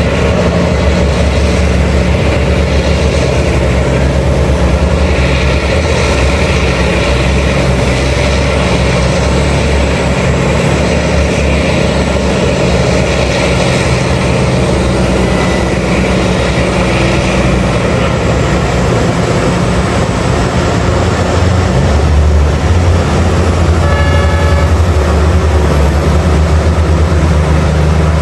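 Heavy diesel engines of a mining excavator and haul truck running steadily at work, growing louder about three quarters of the way through. A short horn blast sounds near the end.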